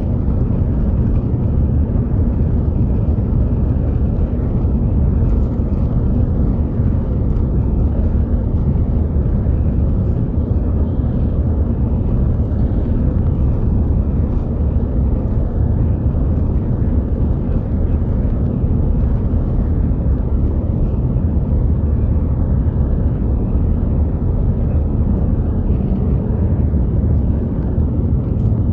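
Airbus A350-900's Rolls-Royce Trent XWB turbofans at takeoff thrust and the wheels rumbling on the runway during the takeoff roll, heard from inside the cabin. It is a steady, loud low rumble with a few faint ticks.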